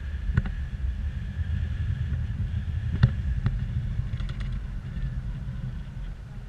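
Wind from paraglider flight buffeting a handheld camera's microphone: a steady low rumble. A few sharp clicks come through about half a second in and twice around three seconds in.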